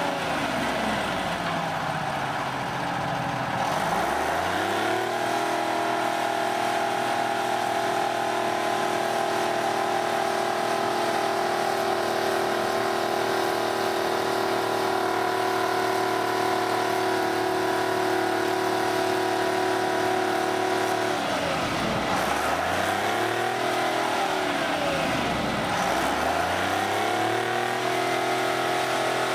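Engine of an earth-moving machine running steadily. Its pitch drops and climbs back three times: once near the start, and twice close together about three-quarters of the way through, as the revs fall and pick up again.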